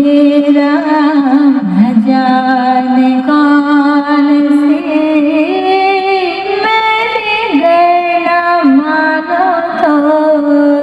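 Music: a solo high voice sings long held notes that slide and bend in pitch, with no deep bass underneath.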